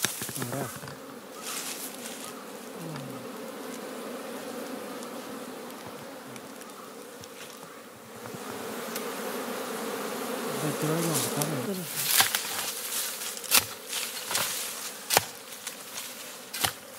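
A colony of native honey bees buzzing steadily around their nest in an earth bank as it is opened. In the second half, several sharp knocks and scrapes of hands digging into the soil at the nest.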